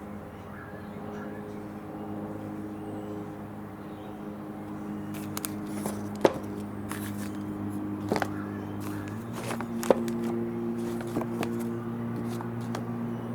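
Peugeot 308 front door being swung open, its worn door check strap giving sharp clicks, three loud ones and some lighter knocks and scrapes. Under them is a steady low hum that steps up in pitch about nine seconds in.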